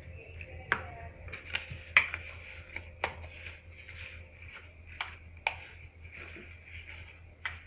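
Metal spoon tapping and scraping against a plastic container and bowl while sugar is spooned onto cut strawberries and stirred in: light, irregular clicks, several of them sharp.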